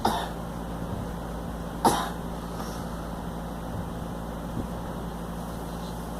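A girl coughing: two short, sharp single coughs, one at the start and one about two seconds later, over a steady low hum.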